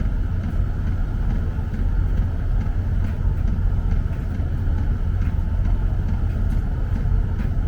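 Steady low mechanical rumble of a running motor or engine, with a fainter even hum higher up.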